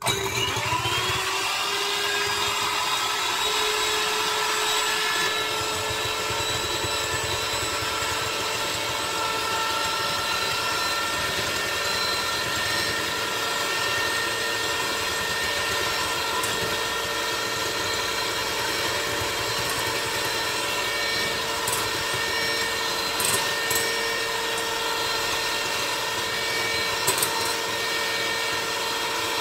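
Electric hand mixer whipping egg whites in a glass bowl: the motor switches on and spins up over the first second, then runs at a steady whine. A few light clicks come near the end.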